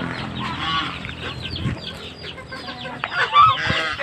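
A flock of chickens calling: many short clucks and peeps overlapping, with one louder call about three and a half seconds in.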